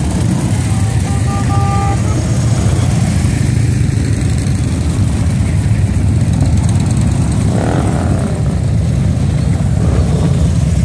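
Steady low rumble of a procession of motorcycles, large touring bikes and a trike, riding slowly past one after another. A short two-note tone sounds about a second in.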